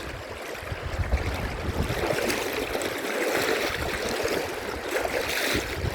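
Shallow river rapids: a steady rush of water running over rocks, with an irregular low rumble underneath.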